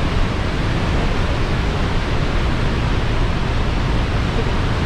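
Steady rush of Niagara's Horseshoe Falls, an even wall of falling-water noise with a heavy low rumble.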